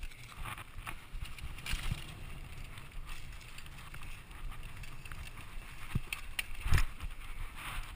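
Mountain bike riding fast down a dirt singletrack: a steady low rumble of tyres on dirt, with scattered rattles and knocks from the bike over bumps. The sharpest and loudest knock comes just under seven seconds in.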